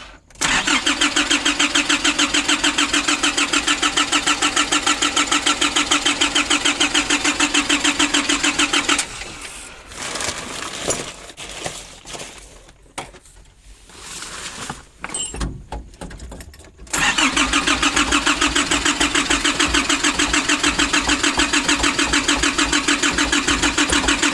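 Diesel engine of a 2005 Nissan Urvan being cranked by its starter, an even rapid chugging of about five strokes a second, without catching: the fuel system is starved of diesel after standing empty. The cranking stops for several seconds in the middle, with a few quieter knocks, then starts again.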